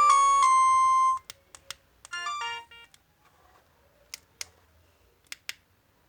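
LG MG160a mobile phone's polyphonic alarm tone, a stepped electronic melody ending on a held note about a second in. Then come a few sharp keypad clicks, a brief run of quick electronic notes, and four more clicks as the phone's keys are pressed.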